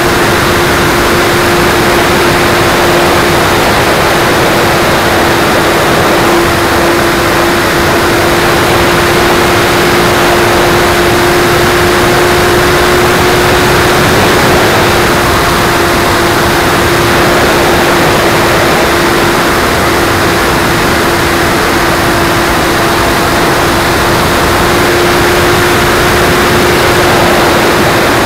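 E-Flite Splendor's electric motor and propeller running at a steady pitch in flight, heard from on board, with heavy wind rush over the microphone.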